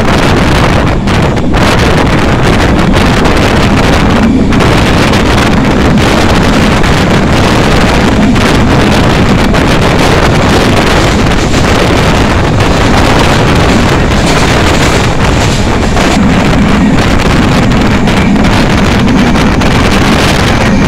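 Loud, steady wind buffeting the microphone at the open window of a moving vehicle, with the vehicle's low running rumble underneath.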